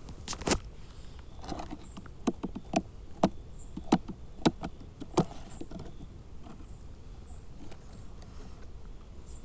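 Irregular sharp taps and knocks, about a dozen over the first five seconds, as a cardboard box is tipped and shaken on stony ground. After that only a faint outdoor background remains.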